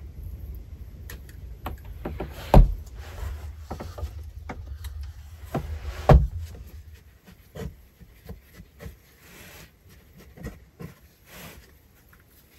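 Wooden plank door of a log dugout being shut: two heavy thumps about three and a half seconds apart, over a low rumble that stops after the second one. Lighter wooden taps and clicks follow.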